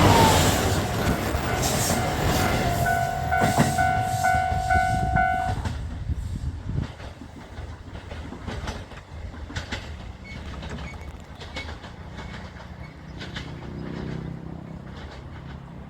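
JR Kyushu Nanohana diesel train passing over a level crossing, its wheels clacking on the rails as it draws away and fades. The crossing's warning bell rings with a quick repeating ding and stops about five and a half seconds in.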